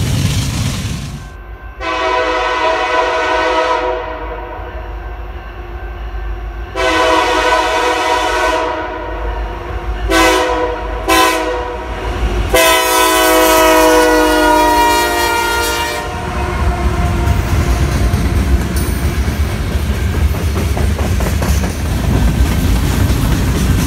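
Diesel freight locomotive's air horn blowing a grade-crossing signal: two long blasts, two short ones, then a final long blast. After the horn stops, the train rolls past with a steady rumble and the clickety-clack of freight cars over the rail joints.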